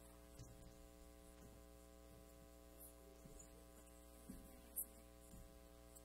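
Near silence: a steady electrical hum, with one brief click a little before five seconds in.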